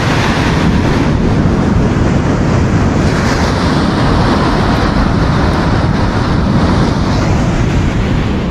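Surf breaking and washing up a sandy beach, with wind blowing over the microphone: a loud, steady rush with no break.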